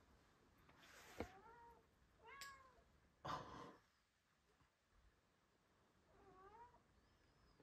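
Orange tabby cat meowing three times, faintly, through a closed glass door. A sharp click comes about a second in and a short burst of noise a little past three seconds.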